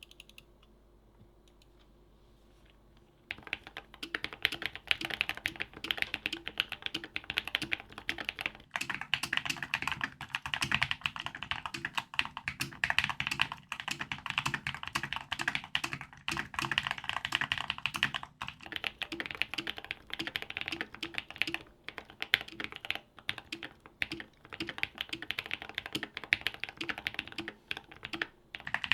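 Custom mechanical keyboard being typed on: fast, continuous keystrokes starting about three seconds in, after a short quiet stretch. The sound changes at two points, about a third and about two thirds of the way through.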